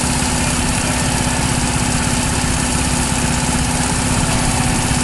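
An engine running steadily at idle, with a constant even hiss over a low hum.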